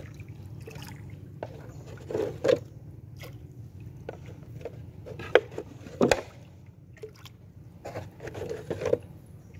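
Wooden canoe being paddled through still water: the paddle dips and pulls, with water splashing and dripping between strokes. A few sharp knocks come in between, the loudest a little past the middle.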